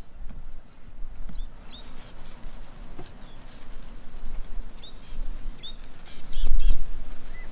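Birds calling in short, sharp chirps, a few every second or so, with a quick cluster of them near the end. A low rumble swells up underneath about a second before the end.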